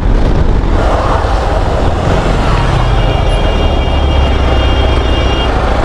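Wind rushing over the microphone of a moving motorcycle, over the bike's low engine rumble. About halfway through, a long steady high tone, like a horn, sounds for roughly two and a half seconds.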